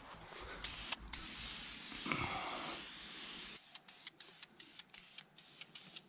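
Aerosol spray-paint can hissing for about three seconds, then a string of light clicks, over a steady high trill of insects.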